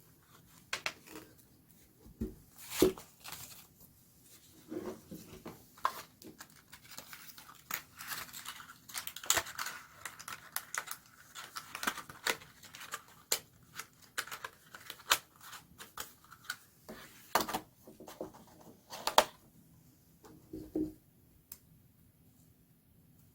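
Phone packaging handled and opened by hand: crinkling and tearing with many sharp clicks and taps. The activity is busiest in the middle stretch and dies away near the end.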